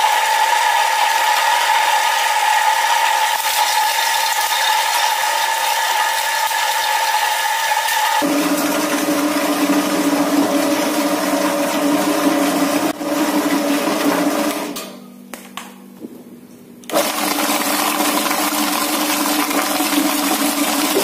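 Electric meatball-dough mixer's motor running steadily with a whine while its paddle churns the dough. About eight seconds in, the whine drops sharply to a lower pitch. Near the end the sound cuts out for about two seconds, then starts again.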